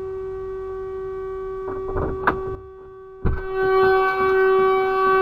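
A vehicle alarm sounding one steady, horn-like tone. A few sharp knocks come just before halfway, the sound drops away briefly just past halfway, then the tone returns louder.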